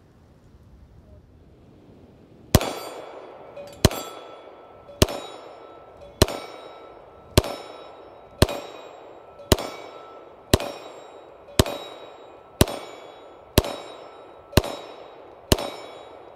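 A semi-automatic pistol fired thirteen times in slow steady fire, about one shot a second, beginning a couple of seconds in. Each shot is followed by the ringing clang of a steel plate target being hit.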